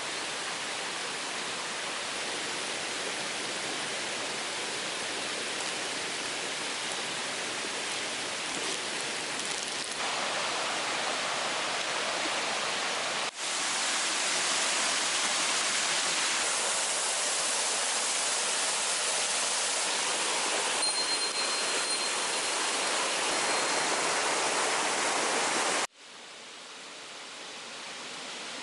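Mountain stream rushing steadily. Its level jumps abruptly a little under halfway in, then drops sharply near the end and builds back up.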